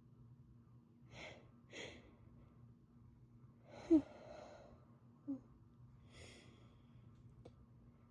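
A woman with a cold takes two quick, hitching breaths, then sneezes sharply about four seconds in. A smaller voiced burst follows a second later, and then a breathy exhale.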